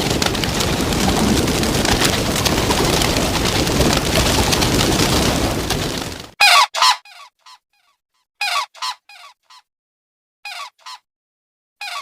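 A steady rushing noise for about the first six seconds, which cuts off abruptly. Then a goose honks in short runs of two or three calls, with silent gaps between the runs.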